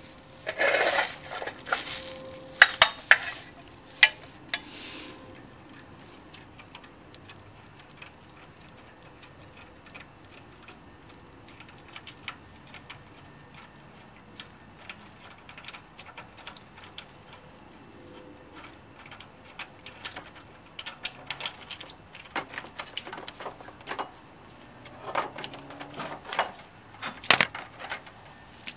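Metal hand tools clinking and clattering against engine parts. There is a burst of sharp metallic knocks in the first few seconds, scattered light ticks after that, and a second run of clinks near the end.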